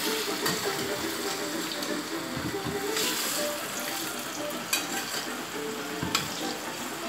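Plantain slices deep-frying in a pan of hot oil, sizzling steadily while a slotted skimmer turns them, with a few light knocks of the skimmer against the pan.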